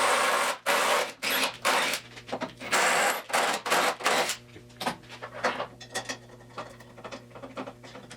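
A hand tool scraping metal in quick irregular strokes while bolt holes are cleaned up, for about four seconds. After that come light metallic clicks and taps as the part is fitted, over a steady low hum.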